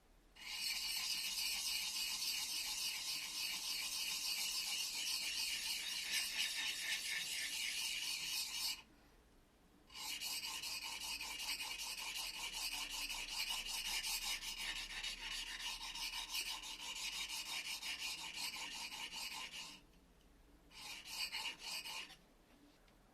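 A steel blade being rubbed back and forth on a sharpening stone: gritty, rapid scraping strokes in two long bouts and a short third one.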